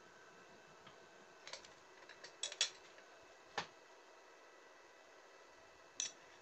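A few light metallic clicks and taps, scattered and irregular, as steel latch plate parts are handled, over a faint steady hum.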